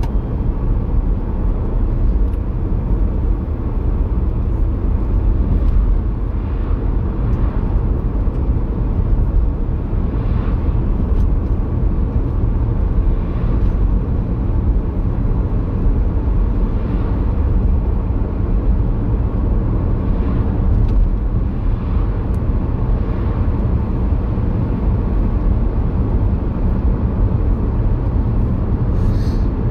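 Steady low rumble of tyre and engine noise inside a moving car.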